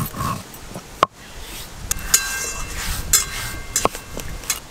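Stone roller (nora) rubbed back and forth on a stone slab (sil), crushing dry-roasted whole spices such as cumin, coriander and dried chilli into powder: a gritty scraping with occasional knocks.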